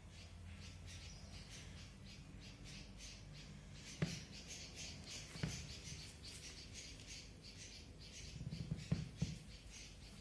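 Pet parrot moving about, making rapid light scratchy ticks about three or four a second. There are a few sharper taps about four and five seconds in and a small cluster near the end.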